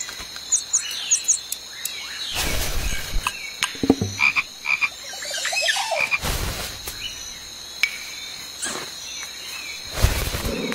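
Frog croaking, a few scattered calls, broken up three times by a loud, short rush of noise that fits the paper napkin being crumpled and rustled.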